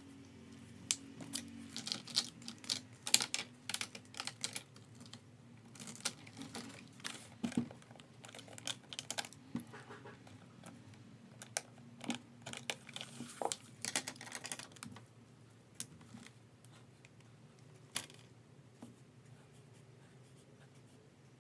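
Plastic gel pens clicking and clattering against each other and a clear plastic pen case as pens are picked out and set down on the desk. The clatter comes in quick runs for the first fifteen seconds or so, with only a few scattered taps after.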